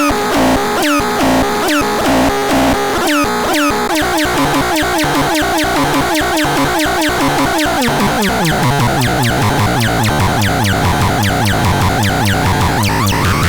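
Electronic synthesizer sounds: a fast train of short chirps that each fall in pitch, repeating several times a second and quickening. A steady low bass tone comes in about eight seconds in.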